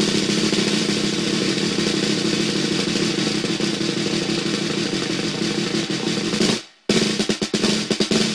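Snare drum roll, sustained for about six and a half seconds, then stopping abruptly. After a short gap the snare comes back in as separate strokes.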